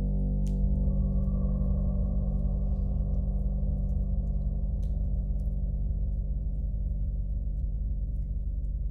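Gong struck softly about half a second in, its wash of overtones swelling over a deep, steady drone of overlapping sustained tones and then slowly fading.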